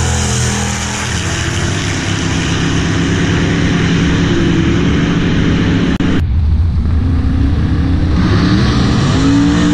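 Drag-race cars running at full throttle down the strip, a loud, steady engine noise. About six seconds in it changes abruptly to lower engine rumble, and near the end engines rev up.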